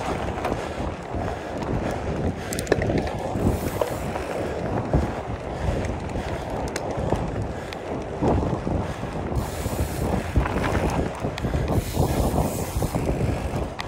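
Wind buffeting the microphone: a rumbling rush of uneven loudness, with short spells of higher hiss now and then.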